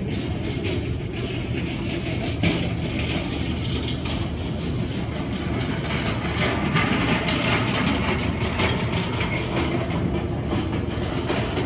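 Steady low mechanical rumble of airport terminal background noise, with scattered small clicks and clatter and one sharper knock about two and a half seconds in.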